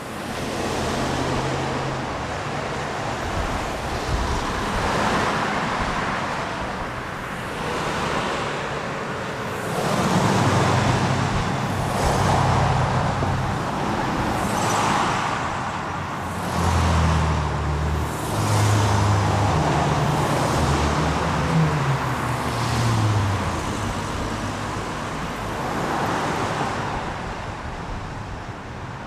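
City road-traffic ambience: a steady wash of tyre and road noise with vehicles passing one after another, their engines a low hum. It swells louder from about ten seconds in and again a few seconds later.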